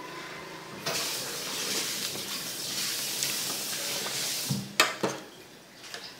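Steel ladle stirring a pot of boiling soup, a loud churning and bubbling of the liquid for about four seconds, then two sharp clanks of the ladle against the metal pot near the end.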